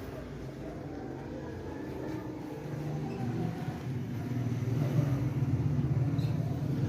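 A motor vehicle engine running, a steady low hum that grows louder partway through.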